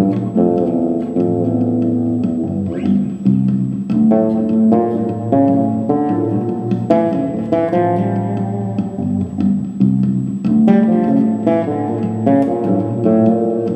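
Fretless Fender Jazz Bass played with the fingers in a gipsy-jazz style: a plucked melody of changing, sustained notes over a steady low bass line, layered with parts repeated from a Boss RC-20 loop pedal.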